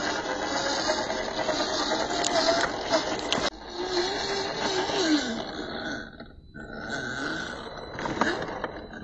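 Small electric motor and gearbox of an MN86K RC crawler whining as it drives through mud, the pitch falling and rising with the throttle; the sound drops sharply about three and a half seconds in and picks up again.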